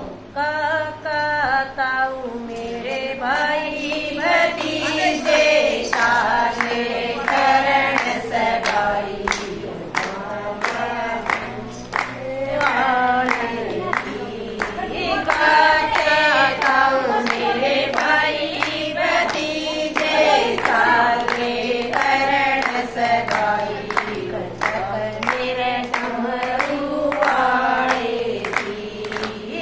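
A group of women singing a Haryanvi Shiva bhajan together, clapping their hands to a steady beat.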